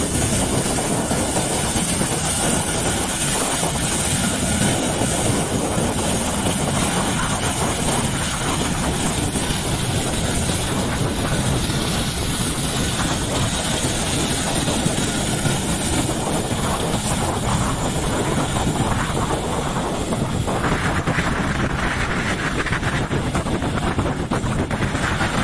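Tandem-rotor CH-47 Chinook helicopters running on the ground and hovering: a steady, loud wash of rotor beat and turbine engine noise.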